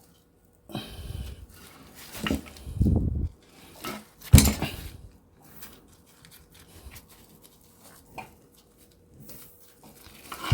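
Scrap metal parts clattering and clanking as they are handled and dropped, with one loud clank about four seconds in, then a few light clicks and knocks.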